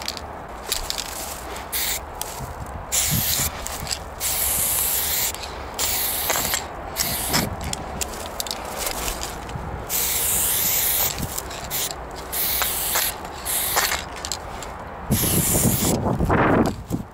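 Aerosol spray paint can hissing in repeated bursts, some short and some held for a second or two, with brief gaps as the nozzle is pressed and released. Near the end there is a louder, lower crunching noise.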